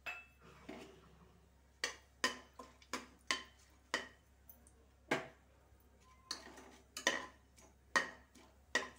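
Steel spoon scraping and tapping against the base and sides of an aluminium pressure cooker while whole spices are stirred in hot oil: a run of sharp, irregular clicks and knocks, several a second at times.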